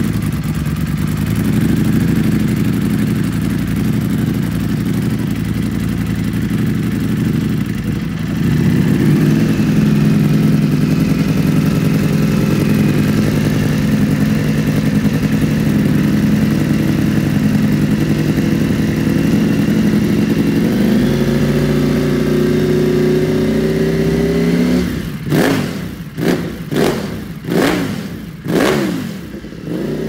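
Ducati Panigale V4 Speciale's V4 engine idling through an Akrapovic full titanium exhaust, the idle pitch creeping up slightly after about twenty seconds. Near the end it is revved in about five quick throttle blips, each rising and falling sharply, then settles back to idle.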